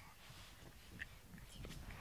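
Faint low purring of a domestic cat being petted.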